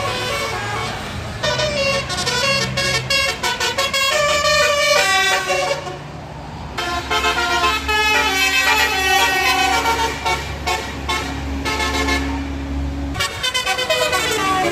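Bus fitted with a 'telolet basuri' musical horn, playing a fast tune of quickly changing notes in two runs with a short break about six seconds in. The bus's engine hums steadily beneath the second run.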